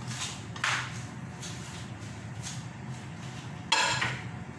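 Two sudden knocks of kitchenware, a wooden spoon and a ceramic bowl, about half a second in and a louder one near the end, over a steady low hum.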